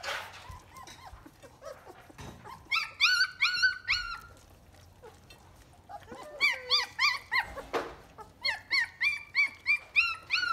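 Three-week-old German Shepherd puppies crying in three runs of short, high-pitched yelps, with pauses between the runs.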